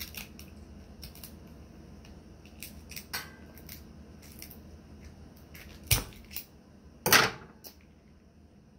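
Scissors snipping through a king crab leg's shell: scattered small clicks and crunches, with two louder cracks about six and seven seconds in.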